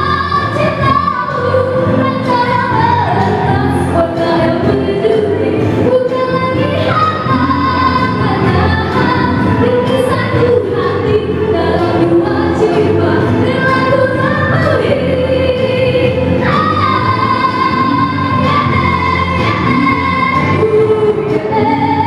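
A woman singing a song into a microphone over amplified backing music, holding long notes with vibrato.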